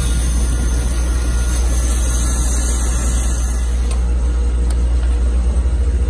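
Outdoor air-conditioning condensing unit running with the power restored, a steady low hum of its compressor and condenser fan.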